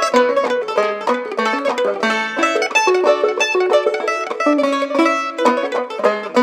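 Clawhammer banjo, its head freshly replaced with rawhide, and a mandolin playing an old-time fiddle tune together in a quick, even run of plucked notes.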